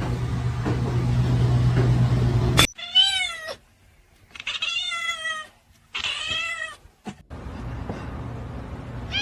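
A steady low hum with noise runs for the first two and a half seconds and cuts off. Then a domestic cat meows three times, each meow short and bending in pitch. The hum returns about a second and a half before the end.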